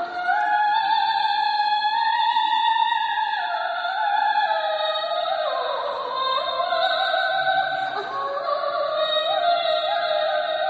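Background music in an operatic style: long held melody notes that slide slowly up and down in pitch.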